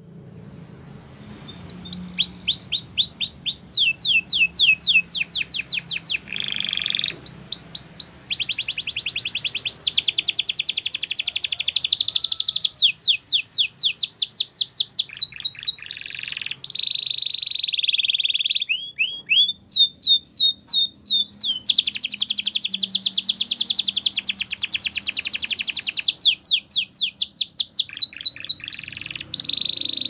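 Domestic canary singing a long song of rapid trills, each a run of quick repeated high notes, switching to a new trill every second or two with brief breaks.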